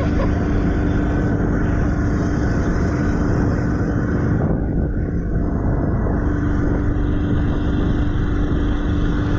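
A 1973 Tahiti jet boat's 4.8 L LS V8 and jet drive running steadily under way: a loud, constant drone with a steady hum through it.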